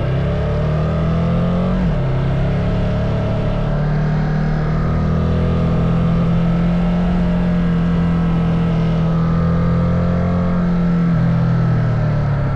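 Ducati Multistrada motorcycle engine running at a fairly steady pitch, dipping slightly near the end.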